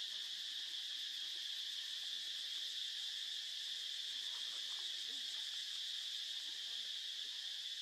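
Steady, high-pitched chorus of insects, unbroken and even in level.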